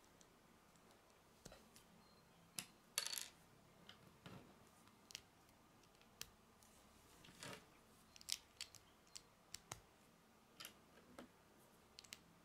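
Small plastic Lego bricks handled and pressed together by hand: faint, irregular sharp clicks and snaps, about a dozen, the loudest about three seconds in and again near eight seconds.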